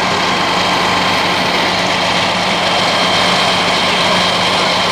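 A heavy engine idling steadily, a constant low hum under an even wash of noise.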